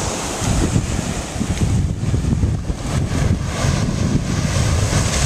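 Wind noise rumbling on the microphone over small waves washing up onto a sandy beach.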